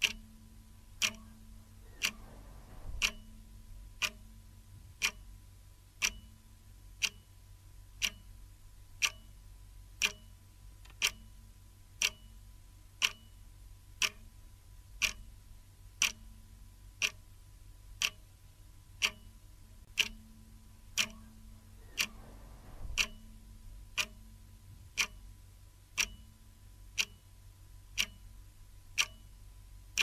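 Clock ticking, one sharp tick each second in an even rhythm, over a faint steady hum.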